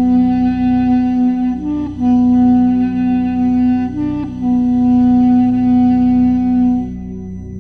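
Background music: a wind instrument holds long, sustained notes over a steady drone, with brief higher turns about two and four seconds in. The lead stops about seven seconds in, leaving the drone.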